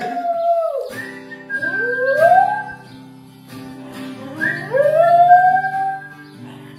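Border terrier cross howling along to a strummed guitar: long howls that swoop up in pitch and then slide down, over ringing guitar chords.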